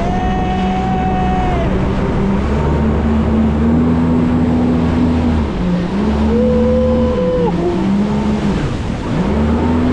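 Jet ski engine running under throttle, its pitch rising and falling several times as the throttle is opened and eased, over a steady rush of wind and water noise.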